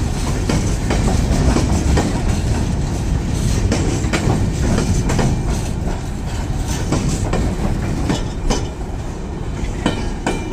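Goods train's wagons rolling past close by: a steady rumble of steel wheels on the rails with irregular clicks and clanks as the bogies cross the rail joints.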